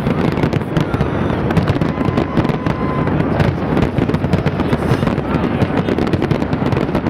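Fireworks display in a dense barrage: many shells bursting in quick succession, overlapping bangs and crackling without a break.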